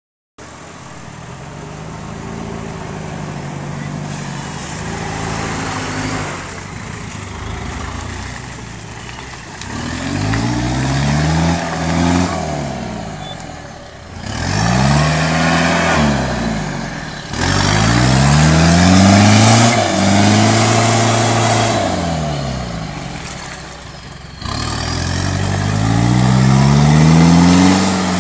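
Off-road 4x4 SUV engine revving up and falling back several times under heavy load as it climbs a steep, muddy, rutted slope, with noise over the engine that gets loudest when the revs peak.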